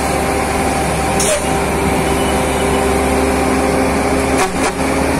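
A Volvo FM12 truck's diesel engine runs steadily under heavy load as it slowly pulls a roughly 98-tonne transformer load. It is a constant drone with a few brief clicks about a second in and near the end.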